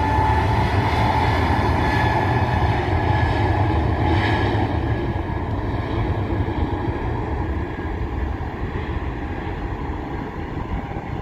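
Embraer E2 airliner's Pratt & Whitney geared turbofan engines running with their tonal moaning 'whale sound': a few steady held tones over a deep rumble, growing gradually fainter over the second half.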